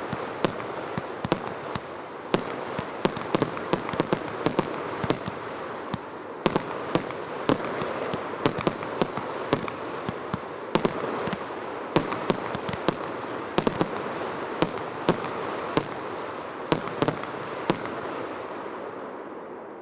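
Multi-shot fireworks cake firing: rapid, irregular sharp bangs, several a second, over a steady dense rushing noise, starting to die away near the end.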